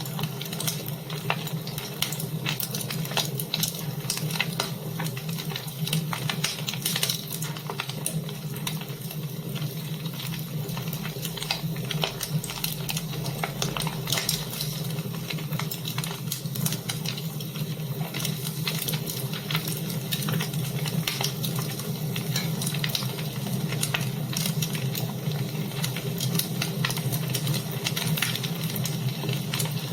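Wood fire in a fireplace crackling, with many small, irregular sharp pops over a steady hiss and a low hum.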